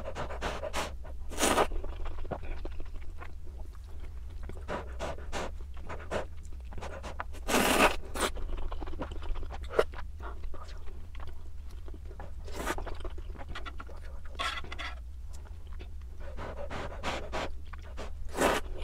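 Close-miked eating sounds of ramen: noodles slurped in a handful of short loud bursts spread through, with wet chewing and small mouth clicks between them. A steady low hum runs underneath.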